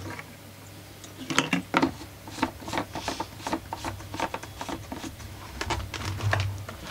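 Irregular plastic clicks and knocks from a Kipor IG770 inverter generator's plastic housing and fuel cap being handled and worked loose during disassembly, several a second, with a couple of louder knocks about a second and a half in.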